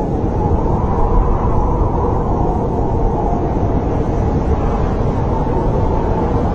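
Snowstorm wind blowing steadily: a low, even rushing rumble with no distinct gusts or breaks.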